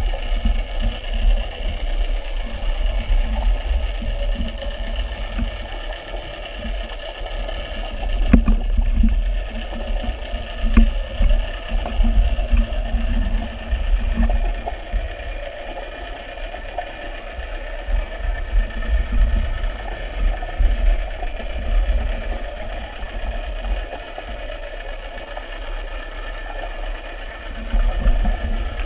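A small motor running steadily: a constant multi-toned whine over a low rumble, with a few faint knocks about a third of the way through.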